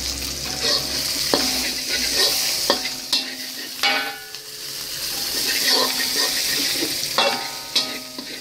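Food sizzling as it fries in hot oil in a pan, stirred and scraped with a spatula. Several sharp clinks of the spatula against the pan ring briefly.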